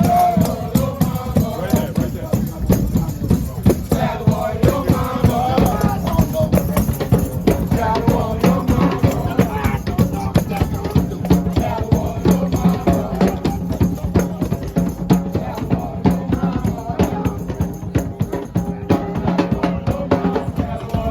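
Mardi Gras Indian street procession music: tambourines, rattles and hand drums beating a dense, steady rhythm while voices chant over it.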